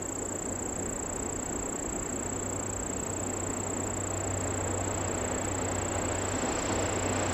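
DD51 diesel locomotive approaching with its twin V12 diesel engines running, a low steady hum that slowly grows louder as it nears. A steady high-pitched tone sounds over it.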